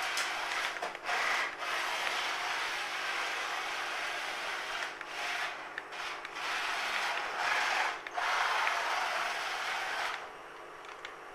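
Bare wheels of a radio-controlled car, tyres stripped off, scraping across the ground as the car slides, with a few brief breaks; it stops about ten seconds in.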